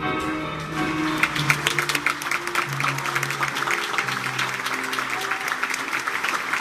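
Live violin and piano music playing held notes, with audience applause breaking out about a second in and continuing over the music.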